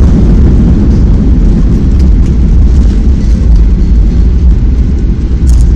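Cabin noise of a Boeing 737-800 rolling on the ground just after landing: a steady low rumble from the engines and the wheels on the pavement.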